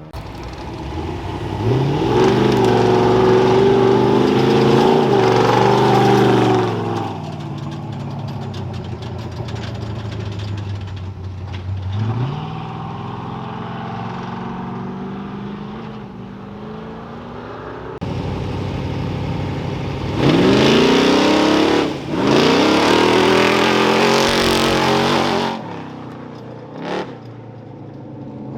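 Off-road race vehicles launching from the start line one after another: engines revving hard and climbing in pitch through the gears, three or four times, with engines running lower and steadier between launches.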